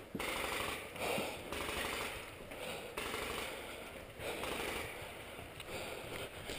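Paintball markers firing covering fire in rapid, irregular strings of shots.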